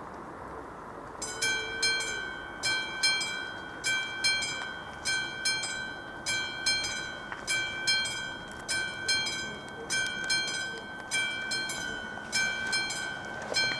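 AŽD 71 level-crossing warning bell, a classic struck bell, starting about a second in and then ringing continuously in quick, uneven strokes: the crossing's warning has been activated for an approaching train.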